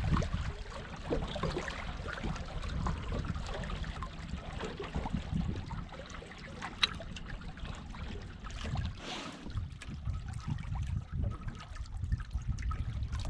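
Water splashing and trickling along the hull of a small sailboat under way, over a steady low rumble, with one sharp click about seven seconds in.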